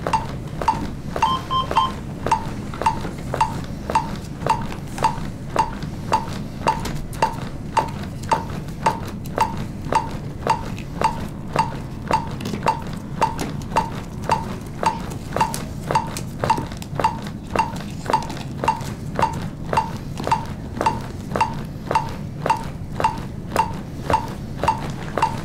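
Defibrillator's CPR metronome beeping about twice a second, a short click-like tone at chest-compression rate pacing the compressions.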